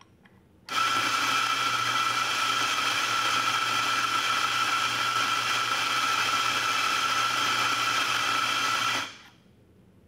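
Eureka Mignon Notte electric burr grinder grinding espresso beans into a portafilter. The motor starts abruptly under a second in, runs steadily with a high whine for about eight seconds, then winds down about a second before the end.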